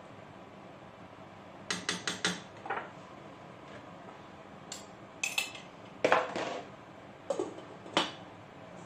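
Metal spoon clinking and scraping against a metal cooking pot as a stew is stirred, in short separate clinks with the loudest clatter about six seconds in. It ends with a knock as the pot's lid is set on, near the end.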